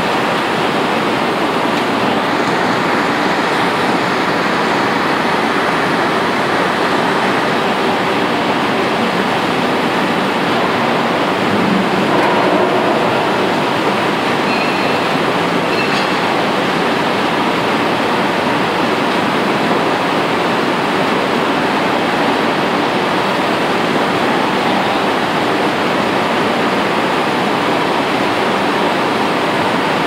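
Blast furnace being tapped: hot metal and gas rushing out of the open tap hole, with flames, as a steady, loud, unbroken rushing noise.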